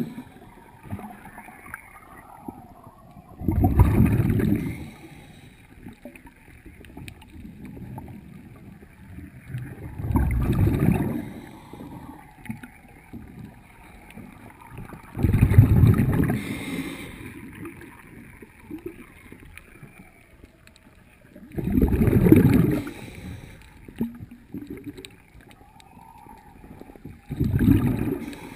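Underwater: a diver's exhaled bubbles rushing out in a loud, low, bubbling burst about every six seconds, five times, with faint ticks between.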